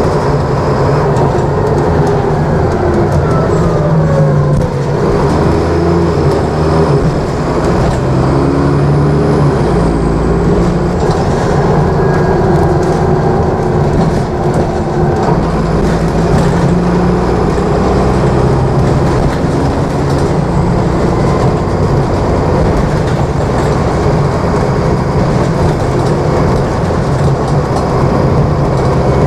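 Dennis Trident double-decker bus heard from inside the passenger saloon while under way: the diesel engine and driveline running steadily, their pitch stepping up and down several times, over constant road and body noise. A whine falls in pitch in the first few seconds.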